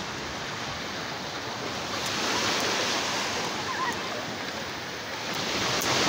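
Small waves of the Sea of Azov washing onto the shore: a steady wash of surf that swells a little about two seconds in.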